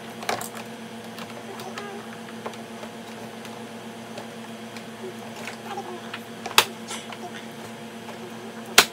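Hard plastic clicks and knocks from a plastic baby booster chair being handled and its parts fitted together. There are a few light taps, a sharp click about six and a half seconds in and a louder one just before the end, over a steady low room hum.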